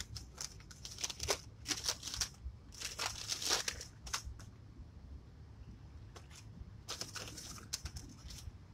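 Paper takeout bag and food wrappers rustling and crinkling as they are handled, in quick irregular bursts, with a quieter lull past the middle.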